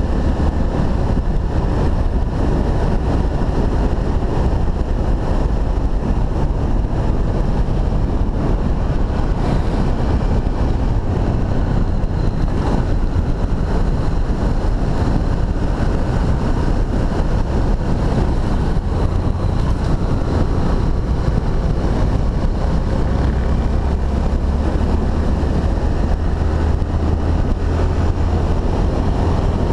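Honda XRE300's single-cylinder four-stroke engine running steadily as the motorcycle rides along, with wind rushing over the microphone.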